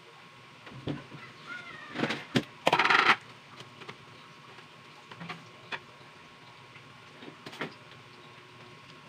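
Malunggay patties frying in oil in a non-stick pan: scattered oil pops and crackles, with a short dense burst of spattering about three seconds in.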